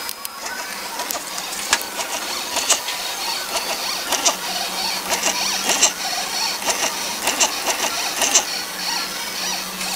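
Stepper motors of an Arduino-driven CNC pen plotter moving its axes: a steady mechanical whir with whining tones that change pitch and scattered, irregular clicks.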